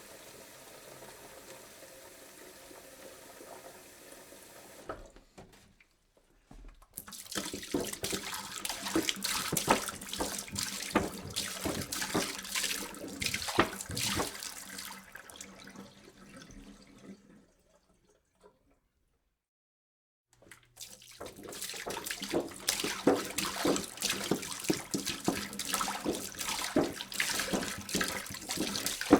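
Water being poured into a jug: two separate pours, each a splashy, gurgling stream, the first fading out about 17 seconds in and the second starting about 21 seconds in after a few seconds of near silence. Before the first pour there is a quieter, steady watery sound.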